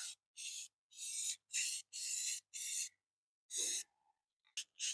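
Aerosol spray-paint can spraying a transmission casing in a string of short hisses, each under half a second, with brief gaps between them and two quick final puffs near the end.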